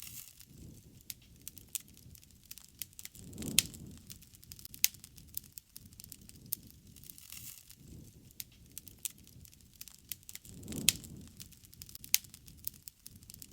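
Wood campfire crackling with a steady run of sharp pops and snaps, and two louder low rushing swells, about three and a half seconds in and near the end.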